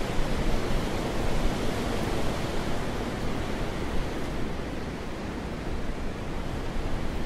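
Wind blowing, a steady rushing noise that eases a little about halfway through.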